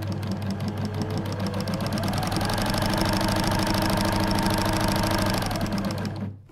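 Sewing machine running at speed: a rapid, even clatter over a steady motor hum, with a tone that rises about a second in and then holds. It stops suddenly near the end.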